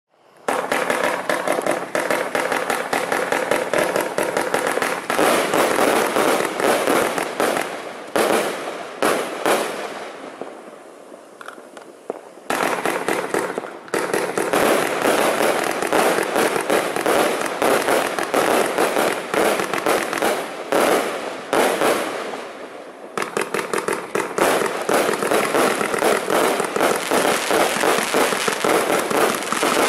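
Nico Europe 'Free the Beast' 144-shot firework cake firing: a dense, rapid stream of shots and bursts. It starts about half a second in, eases off twice into fainter firing, and picks up again each time.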